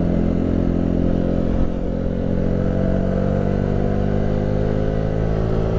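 Motorcycle engine running under way. Its pitch holds for about two seconds, then climbs slowly as the bike accelerates.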